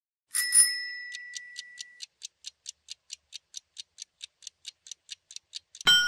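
Countdown-timer sound effect: a chime, then quick clock ticks at about four and a half a second, ending in a ringing bell as the count reaches zero.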